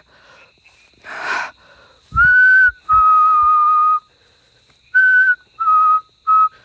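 A person whistling close to the microphone: five clear notes that alternate between a slightly higher and a slightly lower pitch. The second note is held for about a second, and the last three are short. A brief breathy puff comes about a second in.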